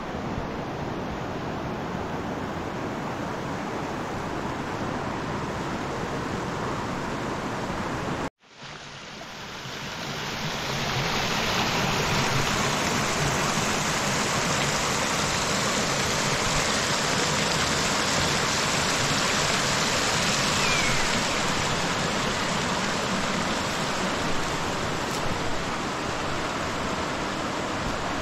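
Big river rushing and churning, a steady noisy roar of water. It cuts out abruptly about eight seconds in, then swells back up over a few seconds, louder and brighter than before.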